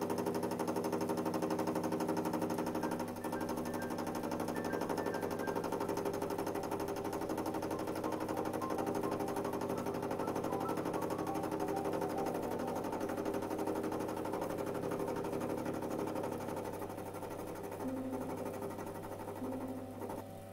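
Small benchtop metal lathe running, its cutting tool turning a spinning metal workpiece held in the chuck: a steady machine hum with cutting noise that starts abruptly and cuts off near the end.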